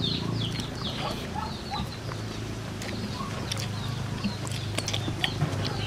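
Birds chirping again and again in short falling notes, over a low steady hum, with a few faint clicks from people eating by hand.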